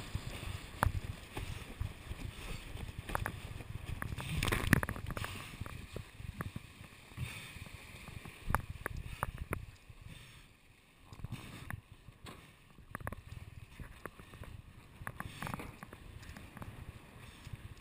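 Windsurf board planing fast over choppy water: a rushing water noise broken by irregular slaps and knocks of the hull on the chop, the hardest a little under five seconds in.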